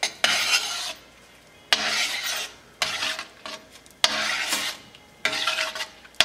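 A utensil scraping round the bottom of a stainless steel sauté pan, stirring spices into quinoa and vegetables in broth. Five rasping strokes come about a second apart.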